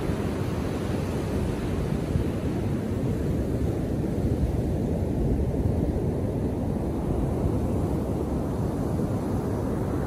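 Ocean surf breaking on the beach: a steady, low wash of waves, with wind buffeting the microphone.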